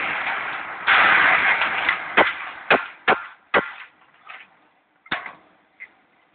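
Rough scraping along a fresh flux-cored weld bead, then about five sharp knocks as a wooden-handled hammer chips the slag off the weld.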